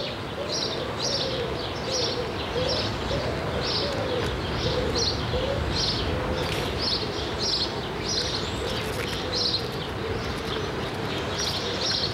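Garden birds singing: short high chirps repeating about twice a second, with a lower wavering call running underneath.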